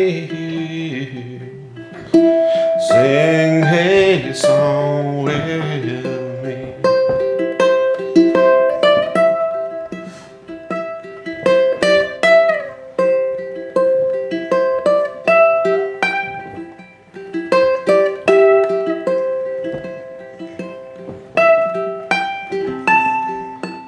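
Acoustic ukulele being fingerpicked. A man's singing voice comes in for a short phrase a few seconds in, then the ukulele carries on alone, picking out a melody of single plucked notes.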